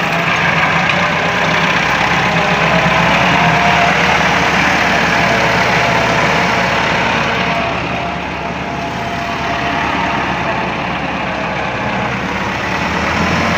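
Tractor's diesel engine running steadily as it tows a trolley loaded with gravel.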